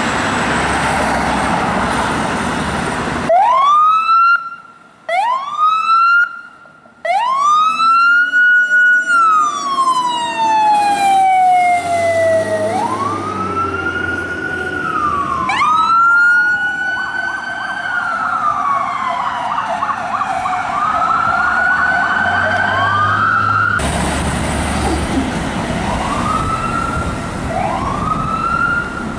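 Fire engine and ambulance sirens starting up on an emergency response. A heavy truck engine runs for about three seconds, then come short rising whoops, long wails that rise and slowly fall, and a fast warbling yelp, with two sirens overlapping. Near the end the rising whoops return.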